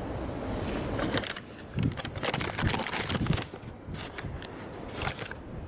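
Paper bag and cardboard packaging rustling and crinkling as a bag of shopping is handled, with irregular crackles.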